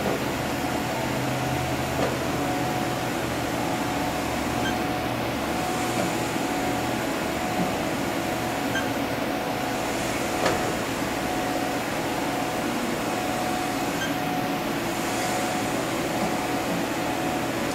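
Haas VF-4 vertical machining center moving its Z axis through its travel: a steady mechanical hum and whir from the brushless servo drive and ballscrew, with a few faint ticks.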